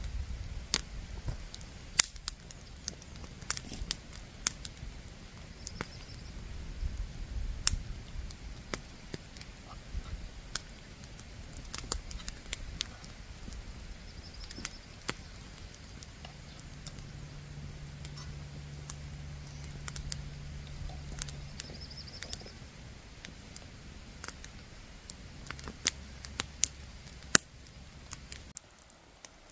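Wood fire crackling, with irregular sharp snaps and pops over a low rumble. A low steady hum joins in for a few seconds past the middle.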